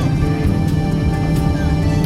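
Background music with sustained tones and a steady beat.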